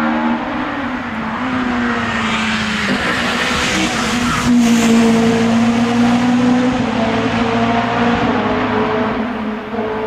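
Opel Kadett C Coupe rally car at full throttle on a tarmac stage, its engine revving hard as it approaches and passes. The engine note steps down about three seconds in, there is a short sharp crack about four and a half seconds in, and the sound is loudest around five seconds in.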